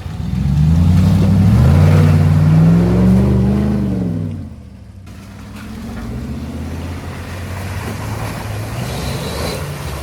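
4x4 pickup truck engine revving hard, its pitch climbing for about three and a half seconds and then dropping away. It then runs on more quietly at a lower, steadier pitch.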